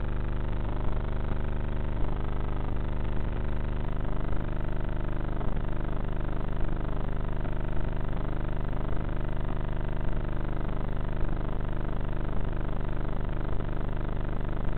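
Brushless electric motor and pusher propeller of a Bixler RC foam plane running steadily in flight, its drone slowly wavering in pitch. A short click comes about once a second.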